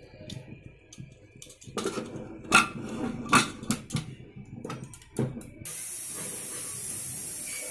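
Clanks and knocks of a stainless-steel pressure cooker's lid being set on and locked, several sharp metal strikes over a few seconds. Near the end a steady hiss begins abruptly as oil goes into an aluminium kadai.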